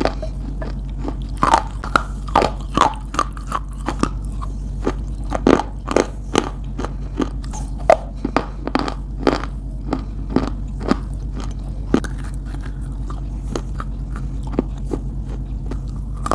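Close-up biting and chewing of crunchy edible clay, a string of irregular crisp crunches that thin out over the last few seconds. A steady low hum runs underneath.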